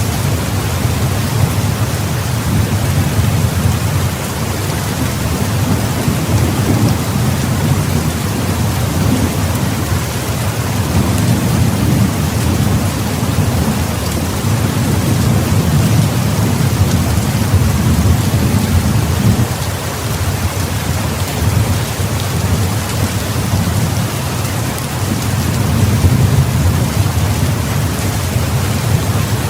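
Heavy rain pouring steadily, with a deep low rumble underneath that swells and fades every few seconds.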